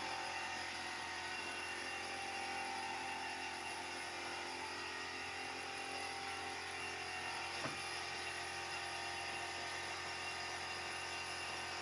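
Steady whir of workshop machinery, with a single sharp click about two-thirds of the way through.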